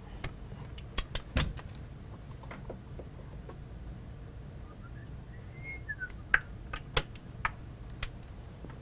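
Metallic clicks and clacks of a Walther LGU underlever spring-piston air rifle being cocked, the lever swung out and latched back, with a brief faint squeak partway through. The clicks come as a pair about a second in and a quicker cluster in the last few seconds, over a steady low hum.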